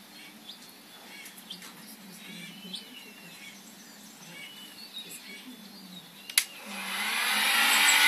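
Birds chirping faintly, then a sharp click about six seconds in, followed by the steady blowing hiss of an electric heat gun that swells loud near the end as it heats vinyl wrap film on a car door handle.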